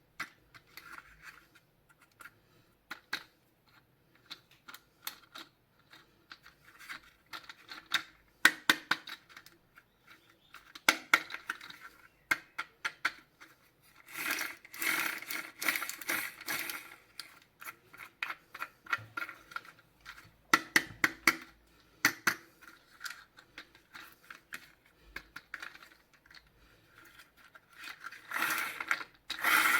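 Handling noises from unboxing toys: a string of small clicks and taps with stretches of scraping, tearing and crinkling of packaging, the longest and loudest about halfway through and near the end.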